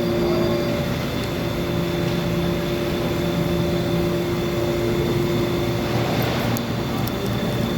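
Steady mechanical drone carrying several steady hum tones, with a few faint ticks near the end.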